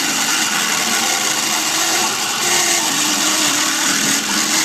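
Electric hand drill running at a steady speed, spinning a plastic valve part in its chuck while it is shaped, the drill standing in for a lathe.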